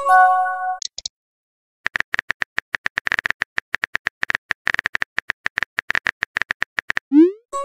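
Texting-app sound effects: a short message chime at the start, then, after a brief gap, rapid keyboard-typing clicks for about five seconds, ending in a quick rising swoosh of a message being sent.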